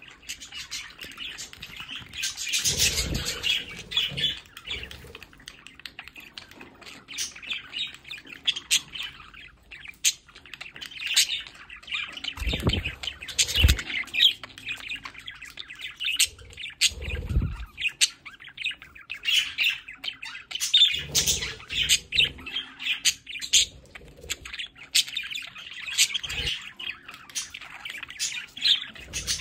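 A small flock of budgerigars chattering, with quick chirps, warbles and squawks and many sharp clicks. A few short low thumps come in between, the loudest about 14 seconds in.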